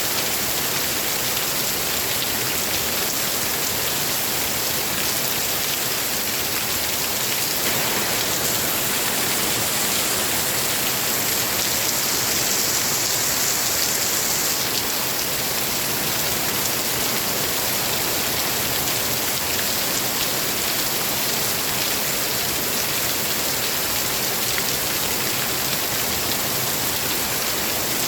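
Steady, heavy rain falling as a dense, even hiss, growing slightly louder from about a third of the way in to the middle.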